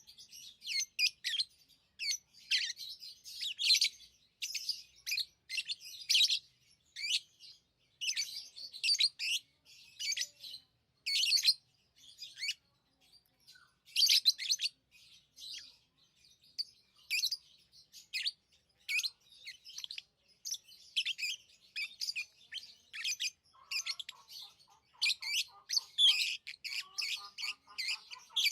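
Pet lovebirds chirping: a rapid, continuous run of short, high, sharp chirps. Near the end a lower, buzzy chattering joins in.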